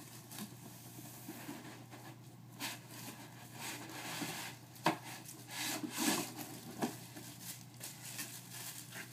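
Cardboard box and foam packing rubbing and scraping as a laptop is worked out of its box, with rustling and a couple of sharp knocks midway.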